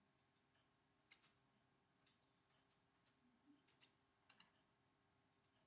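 Faint, irregular clicking of a computer keyboard and mouse as text on a slide is edited, over near-silent room tone.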